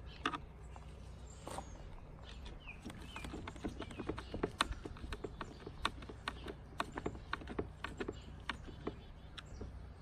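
Small screws being turned by hand with a screwdriver into plastic door-panel trim: a run of sharp, irregular clicks, several a second, from about three seconds in, with a couple of single clicks before.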